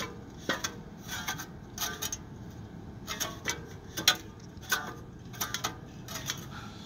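Irregular metallic clinks and knocks, about a dozen over several seconds, as the steel parts of a homemade bomb-shaped prop, a gas-cylinder body and pipe tail fins, are shifted and fitted together by hand; the loudest knock comes about four seconds in.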